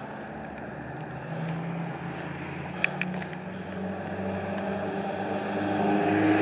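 A vehicle engine running steadily, growing louder toward the end as it approaches, with a short sharp click about three seconds in.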